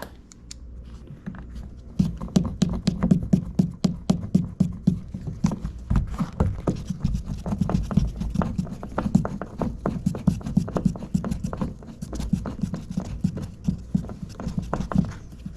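Rapid, irregular clicking and scraping of a hand screwdriver driving the trim screws back into a car's door handle, starting about two seconds in.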